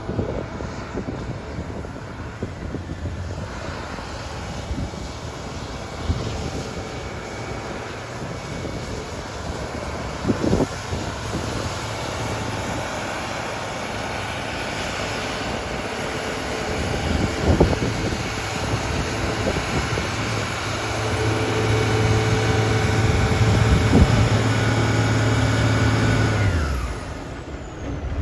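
Airport crash fire-rescue truck driving while its roof turret pumps out a high-pressure jet of water, the diesel engine running under pump load beneath a steady hiss of spray. The engine note strengthens in the second half, then drops in pitch and falls away near the end as the pumping stops.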